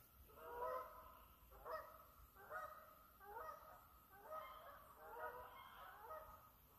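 Geese honking as they fly overhead: about eight faint honks at roughly one a second.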